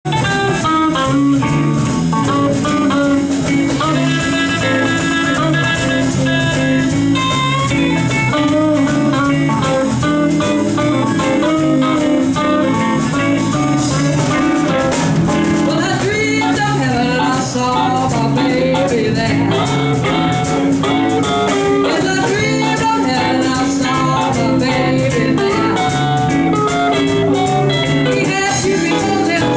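Live band playing with a woman singing lead over electric guitars, bass guitar and a drum kit keeping a steady beat.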